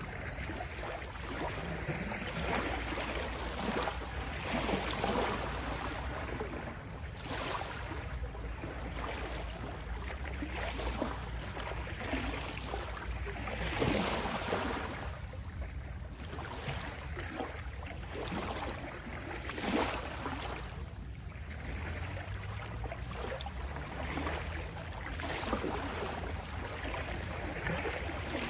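Small sea waves lapping on a shore: a steady rush of water that swells into a louder wash every few seconds.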